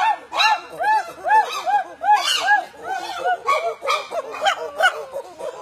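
Young chimpanzees giving a rapid, even series of short hooting calls, each rising and falling in pitch, about two and a half a second. After about three seconds the calls turn ragged and several voices overlap.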